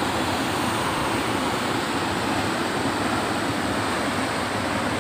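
Steady rush of water pouring out through canal sluice gates and churning into fast white water below.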